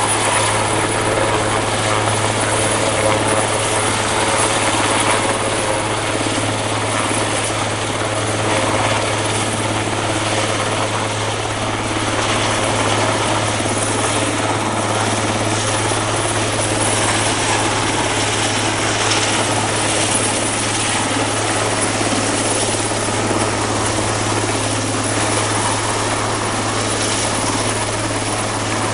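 Eurocopter AS532 Cougar twin-turbine military helicopter hovering low overhead: loud, steady rotor and turbine noise.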